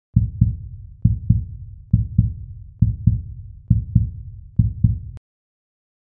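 Heartbeat sound effect: six deep double thumps (lub-dub), about one a second, that cut off suddenly with a faint click near the end.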